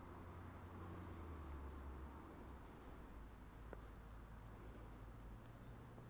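Quiet outdoor ambience with a steady faint low rumble, and twice a pair of tiny high chirps from a distant small bird, about a second in and again near the end.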